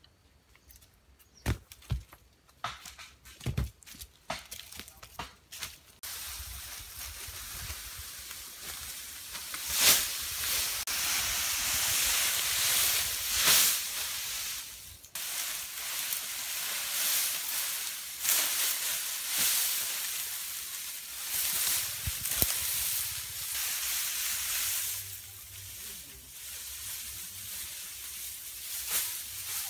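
Sharp snaps and crackles of footsteps on dry leaf litter and twigs, then from about six seconds in a continuous loud rustling and crackling of a bundle of leafy green stalks being carried and handled.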